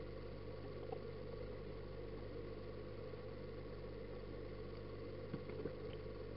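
Steady low hum of an aquarium filter pump running, heard underwater through a waterproof camera housing, with a few faint ticks about a second in and again near the end.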